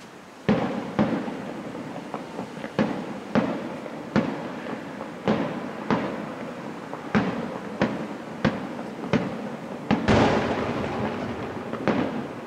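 Aerial firework shells bursting in steady succession: more than a dozen sharp booms, each trailing off, with a louder, longer burst about ten seconds in.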